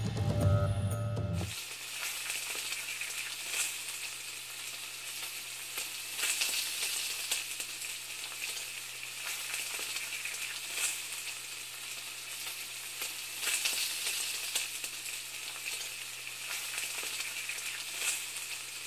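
The show's music ends about a second and a half in, giving way to a steady sizzling, crackling hiss with irregular small pops over a faint low hum.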